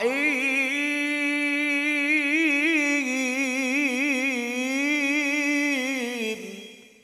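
A man reciting the Qur'an in the melodic, ornamented tilawah style, amplified through a handheld microphone. He sings one long held phrase with a wavering, embellished pitch, which ends about six seconds in and trails off.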